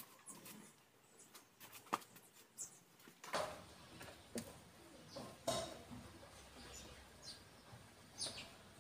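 Faint scattered clicks and taps from hands working over an open cylinder head, with a few short, high bird chirps now and then.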